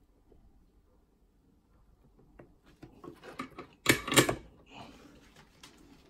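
Small handling noises at a soldering bench: a few light clicks, then two sharp knocks close together about four seconds in, followed by a brief hiss.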